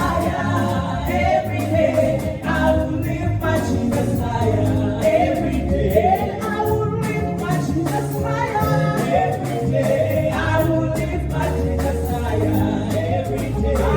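Gospel worship song: voices singing over a band with a steady bass line and regular percussion.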